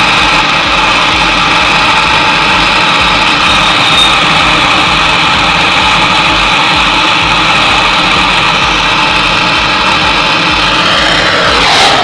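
Gas brazing torch flame hissing steadily while it heats a copper capillary-tube joint to brazing temperature. Just before the end the torch is shut off and its sound falls away with a dropping sweep.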